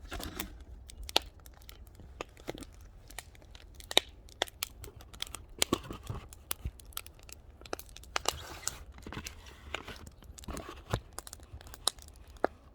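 Firewood fire crackling, with irregular sharp pops and snaps.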